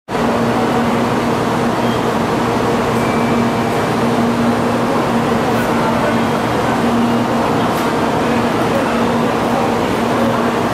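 Shinkansen bullet train running: a steady, loud rush of noise with a constant low hum underneath.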